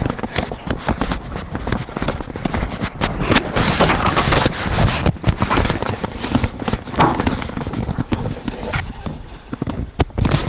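Handling noise: rustling and irregular knocks as the camera rubs and bumps against fabric.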